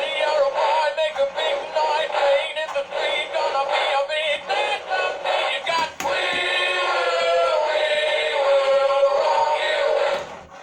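Singing Honey Bass animatronic singing fish playing its song through its small built-in speaker: a sung tune with music, choppy short notes at first, then changing about six seconds in to longer held notes.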